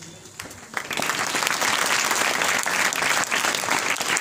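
Audience applauding, many people clapping together. It breaks out about a second in and holds steady.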